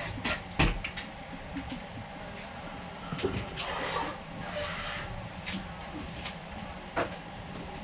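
A few sharp clicks and knocks from handling a GoPro Hero 9 action camera, over a steady background hum; the loudest click comes about half a second in.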